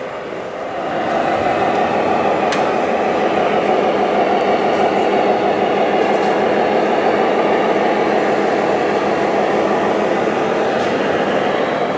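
Radio-controlled model MAN truck with trailer driving past, a steady running noise that grows louder about a second in and then holds.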